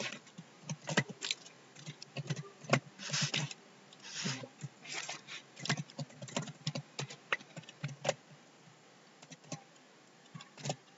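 Typing on a computer keyboard: irregular keystrokes as a line of code is entered, with a pause of a second or so near the end.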